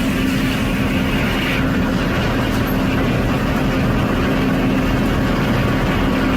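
Sawmill circular-saw machinery running with a steady low hum; a higher-pitched component drops away about a second and a half in.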